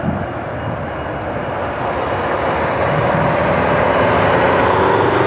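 The two GE CF34-10E turbofan engines of an Embraer ERJ-195 jet airliner at takeoff thrust during the takeoff roll and lift-off: a steady jet rush with a faint whine, growing steadily louder as the aircraft comes closer.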